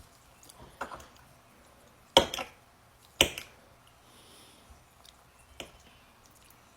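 Four short, sharp clicks at uneven intervals; the two loudest fall about a second apart, two and three seconds in.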